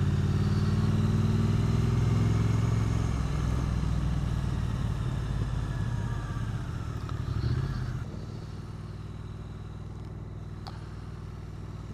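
Triumph Street Twin 900's 900 cc parallel-twin engine and exhaust under way on the road, heard from the rider's seat. The note is strongest at first, eases off, swells briefly, and about eight seconds in drops to a quieter, steadier level.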